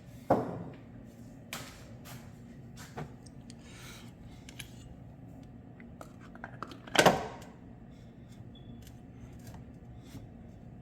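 Hand tools and metal parts being handled during engine mount work: two loud knocks, one just after the start and one about seven seconds in, with lighter clicks and taps between them.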